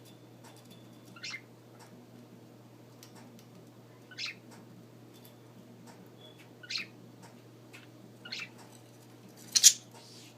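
Budgerigar chirping: five short, high calls a second or two apart, the last one loudest, with faint clicks and a low steady hum underneath.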